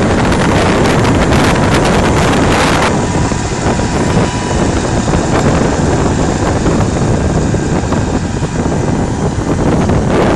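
Tractor engine running steadily as it pulls a mulch-film corn planter past at close range, mixed with heavy wind noise on the microphone.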